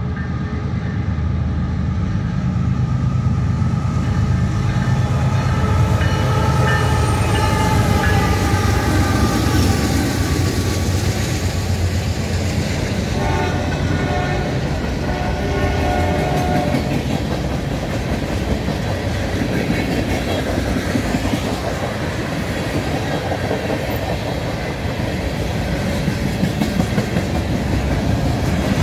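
Freight train passing close by: the lead diesel locomotive's chord horn sounds long through roughly the first twelve seconds and again briefly a little later. Under it the train rumbles past, with the freight cars' wheels clacking over the rails.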